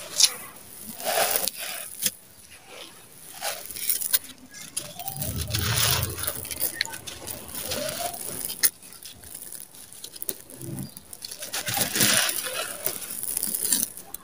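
Dry, crumbly sand-cement crushed and broken up by hand, in irregular gritty crunches with loose grains and powder pattering down.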